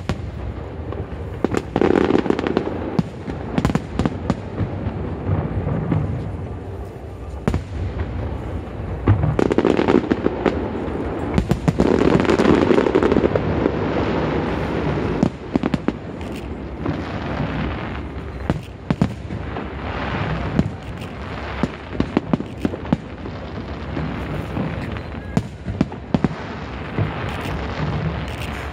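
Aerial fireworks going off in a continuous barrage: booming shell bursts and sharp cracks and crackles. Denser, louder volleys come about two seconds in and again from about ten to fifteen seconds.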